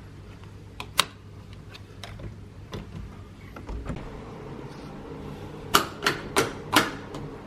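A few sharp clicks, then four louder knocks in quick succession near the end.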